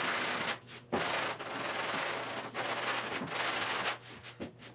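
Dura-Block hand sanding block with sandpaper being pushed back and forth over the steel body panel of a 1972 Triumph GT6, taking it down to bare metal. The long sanding strokes come in a run of several, with short breaks between them, and stop about four seconds in, leaving only a few light knocks.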